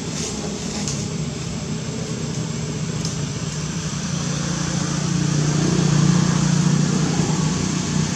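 A motor vehicle engine running with a steady low hum. It grows louder about halfway through, peaks, then eases off, as if the vehicle is passing.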